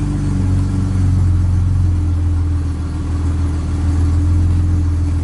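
Chevrolet Omega 4.1's straight-six engine idling steadily, just started from cold, heard from inside the cabin.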